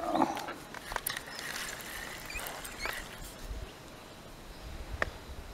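Scattered clicks, knocks and rustling of an angler working a fishing rod and reel and moving about the bank while landing a fish.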